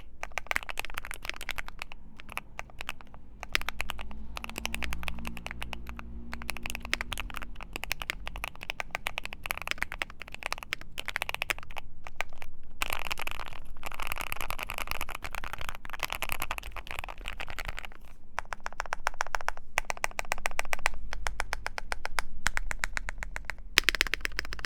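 Fast typing on a Keychron Q3 mechanical keyboard with lubed Gateron Clear White linear switches and PBT doubleshot Cherry-profile keycaps, the case tape-modded and foam-filled on an FR4 plate. The keystrokes come in quick, continuous runs, broken by brief pauses.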